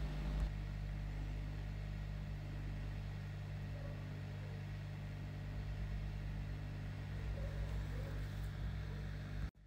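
Steady low electrical hum, several fixed pitches over faint background noise, cutting off abruptly near the end.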